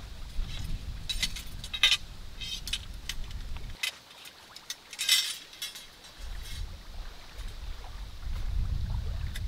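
Metal camp gear being handled and assembled: a folding table frame and poles clinking and rattling in a few sharp clusters, loudest at about two seconds in and again around five seconds. Wind rumbles on the microphone and drops away for a couple of seconds near the middle.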